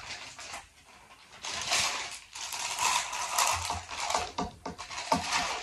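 Crunchy packaged namkeen snack being chewed: an irregular run of crisp crackles and crunches that starts after a short lull.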